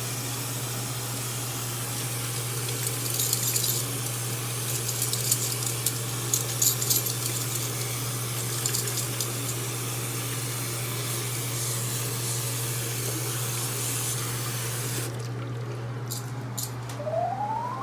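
Water running from a tap into a bathroom sink, a steady hiss over a low hum with a few splashes, shut off about fifteen seconds in.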